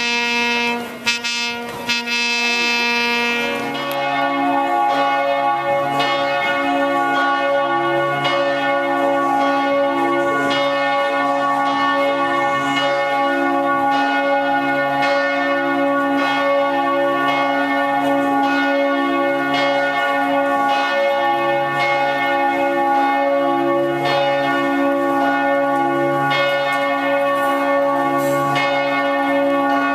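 Church bells ringing continuously, many bells struck over and over so their tones overlap. This starts about four seconds in, after a short held musical tone with clicks.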